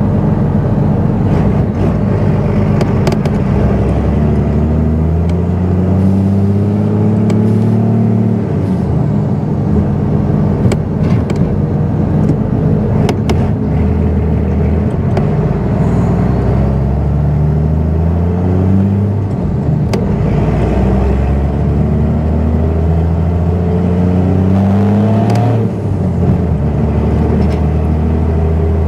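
Truck engine with a manual gearbox heard from inside the cab, pulling up through the gears: its pitch climbs steadily, then drops sharply at each shift, several times over.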